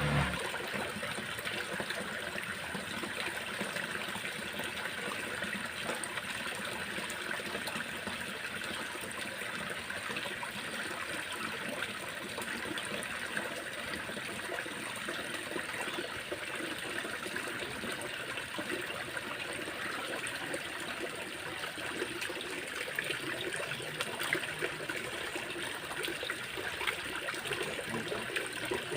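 Shallow water trickling and flowing steadily, with small scattered ticks and splashes.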